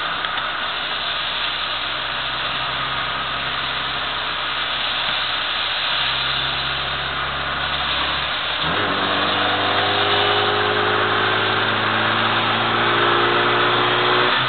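1998 Mini Cooper's 1.3-litre A-series engine heard from inside the cabin at speed, with a steady hiss of tyres on a wet track. About two-thirds in, the engine note jumps higher and climbs as the car accelerates, then drops away right at the end.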